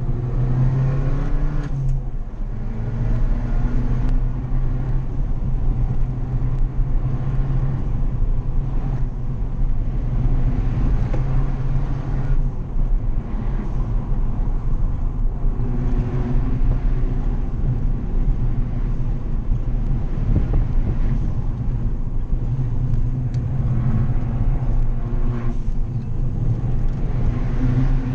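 Fiat 500 hatchback's engine heard from inside the cabin as it is driven along a winding road, running continuously with the revs dropping and picking up again several times through the bends.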